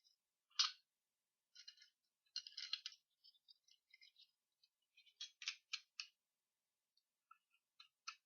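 Faint clicks and scraping of a Colt 25 airsoft pistol's slide and small parts being handled and fitted back onto the frame. There is a sharper click about half a second in and a quick run of clicks a little before six seconds.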